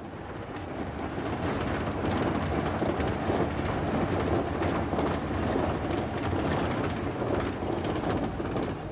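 Vehicle cabin noise heard from inside a moving van: engine running and tyres on a rough dirt road, a steady rumble with faint rattles. It swells over the first couple of seconds.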